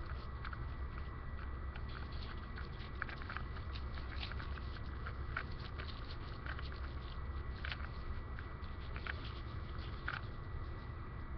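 Small irregular crackles and ticks, a few a second, over a steady low rumble: newspaper and petroleum jelly burning weakly in a small can burner packed too tightly, a fire that is failing to take.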